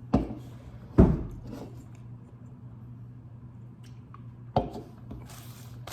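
Three sharp knocks and thumps from handling the food and its packaging while eating, the loudest about a second in, then a brief rustle near the end. A steady low hum sits underneath.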